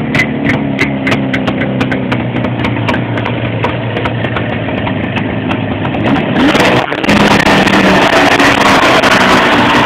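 Jawa 638's two-stroke twin engine idling, then revved about six and a half seconds in and held at higher revs, noticeably louder.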